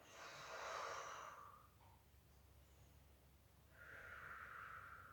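A woman breathing deeply and audibly through a wide-open throat: one long breath of about a second and a half at the start, then a second, narrower-sounding breath from about four seconds in.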